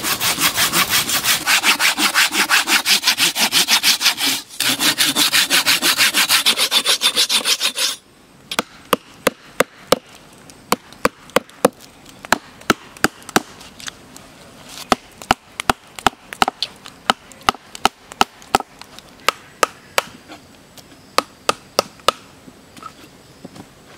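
A hand saw cutting into a log in quick, even back-and-forth strokes for about eight seconds, with a short break about halfway. Then a chisel is driven into the log's bark with a mallet, in sharp separate taps, about one or two a second.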